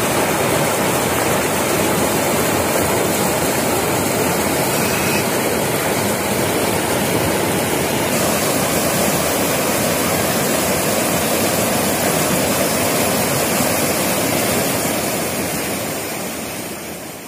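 Fast floodwater of the swollen Parman river rushing and churning in a loud, steady wash of noise that fades out near the end.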